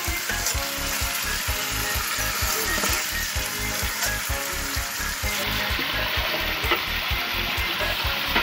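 Chicken and potato curry sizzling in an iron kadai over a wood fire, with a metal spatula clicking and scraping against the pan a few times. A steady low beat runs underneath.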